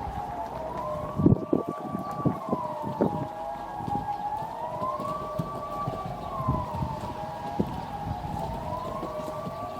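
Civil-defence siren sounding the Swiss general alarm: a wailing tone that rises and falls about every three seconds, several pitches overlapping. A few dull thumps on the microphone come through, the strongest about a second in.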